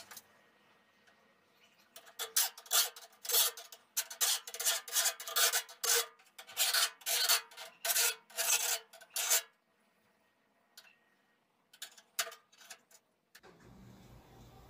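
Bastard file rasping across the steel point of a Tramontina machete blade in quick back-and-forth strokes, about three a second. A short pause follows, then a few more strokes. This is coarse filing to take down the tip, removing a lot of steel.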